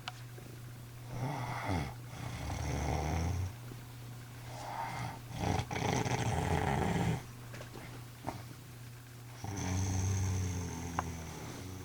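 A woman snoring in her sleep: three long, rough snoring breaths about four seconds apart.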